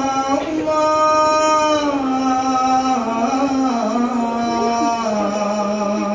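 A man singing solo and unaccompanied into a microphone: long held notes with ornamented turns, stepping gradually down in pitch.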